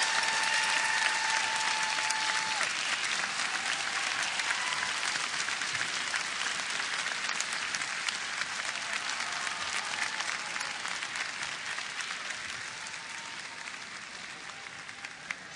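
Large arena crowd applauding, the clapping slowly dying down. A held tone ends about two and a half seconds in.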